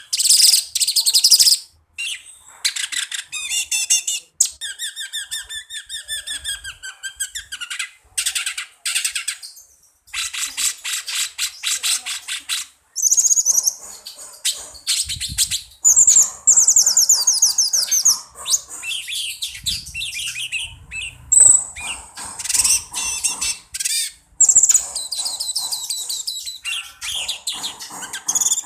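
A cucak cungko songbird singing: shrill, high-pitched phrases of rapid repeated notes and fast trills, a few seconds each, broken by short pauses.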